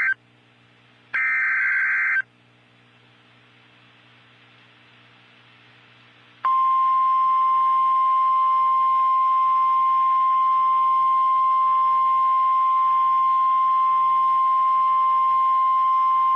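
NOAA Weather Radio emergency alert for a tornado warning: a one-second burst of warbling SAME digital header tones, a few seconds of faint radio hiss, then the steady 1050 Hz warning alarm tone held for about ten seconds and cut off abruptly.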